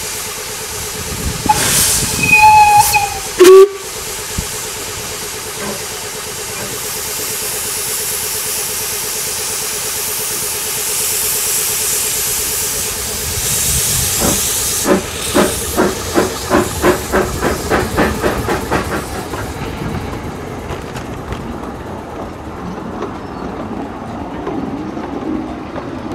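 Two narrow-gauge steam locomotives double-heading a train pulling away: short whistle toots and a brief, very loud blast in the first few seconds, then a steady hiss of steam from the open cylinder drain cocks. From about halfway the exhaust beats of the departure come in, about three a second, giving way to the coaches rolling past.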